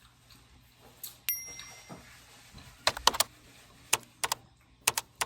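A single light ringing clink about a second in, followed by sharp clicks and taps in small groups of two to four.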